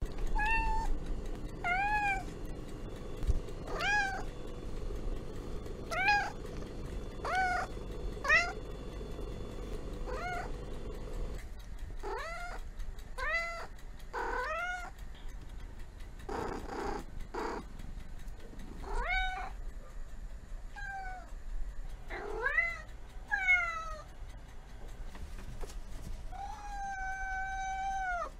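Tabby kitten meowing over and over in short rising-and-falling mews, about one every two seconds at first and then more often. Near the end comes one longer, held meow.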